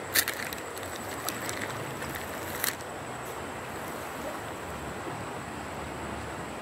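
Steady rush of flowing river water, with a few sharp clicks in the first three seconds, the loudest just after the start.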